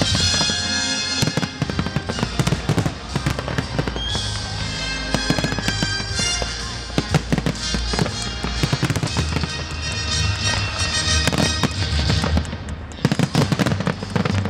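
Fireworks display: a run of shell bursts and crackles, with a quick flurry near the end, over loud music with a heavy bass.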